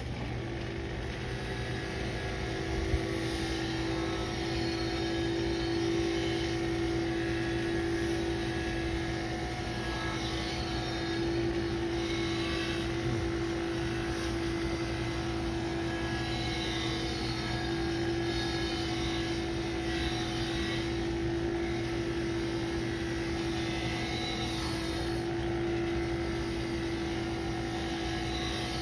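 Bench buffing machine running, its spinning buffing wheel pressed against a brass trombone bell: a steady motor hum and whine under a shifting hiss as the brass is worked across the wheel. A single short knock about three seconds in.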